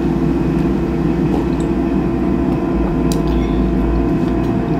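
Steady hum of a running appliance motor, with a fixed tone over a low rumble. A few light clinks of cutlery on a plate come about one and a half and three seconds in.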